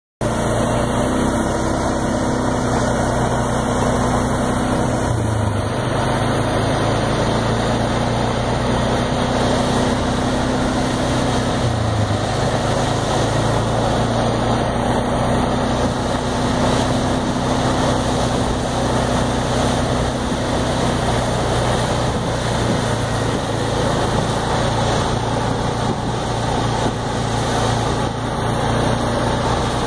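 Case IH SPX4430 self-propelled crop sprayer's engine running steadily under load as it drives through the field spraying, over a constant hiss. The engine note dips briefly in pitch about five and twelve seconds in.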